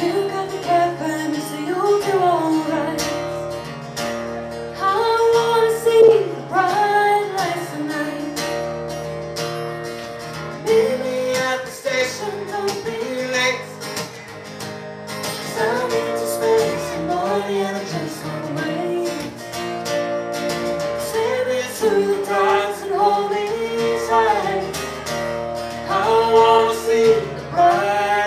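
A folk band playing a song: a woman sings over guitar accompaniment.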